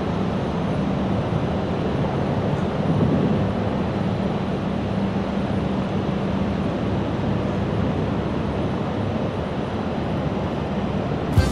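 Steady low drone of a tractor-trailer's diesel engine running as the trailer backs slowly up to a loading dock.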